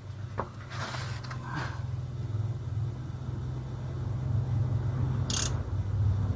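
A few short metallic clinks and scrapes of wrenches on the shock absorber's mounting bolt in the first two seconds, with a brief hiss about five seconds in. Under it, a steady low vehicle-like rumble slowly grows louder.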